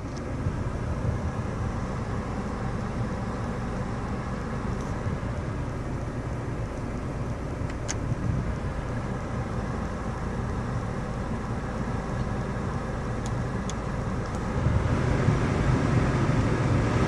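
Citroën C5 (X7) running with its air conditioning on: a steady mechanical hum from the engine and A/C system, which gets louder about fifteen seconds in.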